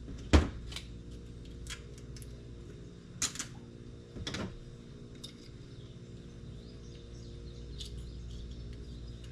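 Hand tools and their packaging being handled: a sharp knock about half a second in, then scattered light clicks and brief scrapes, over a steady low hum.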